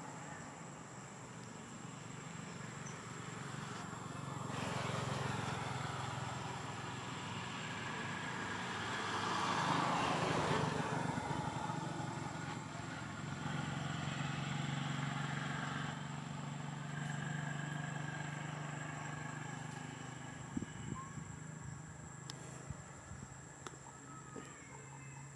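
Road traffic passing: vehicle engines swell up and fade away, the loudest pass about ten seconds in, with a steady high-pitched whine underneath.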